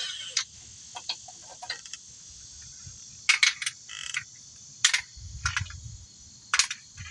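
Sharp metallic clinks and knocks of tools and parts being handled during strut work, coming singly and a few seconds apart, over a steady hiss.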